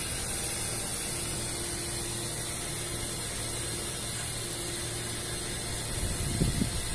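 Steady hiss with a faint low hum underneath, the background of an open steel cargo hold. About six seconds in, a few low rumbling bursts begin.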